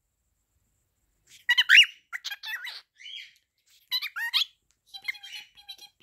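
Cockatiel chirping and squawking: a quick run of short, high calls about a second and a half in, another burst near four seconds, then softer chirps near the end.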